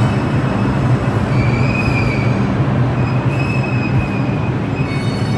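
R142 subway train pulling into the station and slowing, with a steady low hum. High-pitched wheel squeals come in about a second in and again around three seconds.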